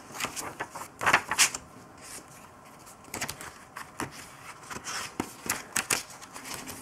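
Thick paper pages of a spiral-bound planner being flipped through by hand, making irregular papery flicks and rustles.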